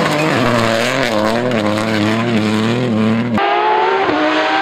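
Peugeot 208 rally car's engine revving up and down through a loose-surface corner. About three and a half seconds in, it cuts off abruptly and a rally car's engine is heard instead, its pitch rising steadily as it accelerates from a distance.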